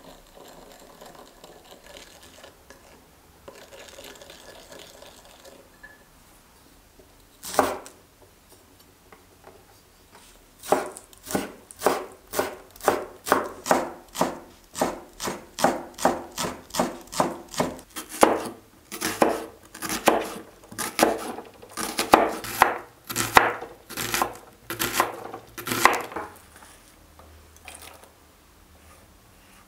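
A wide-bladed cleaver slicing scallions on a wooden cutting board: a steady run of sharp chops, between two and three a second, for about fifteen seconds. Before it, a spoon scrapes faintly while stirring sauce in a small glass bowl, and there is a single knock.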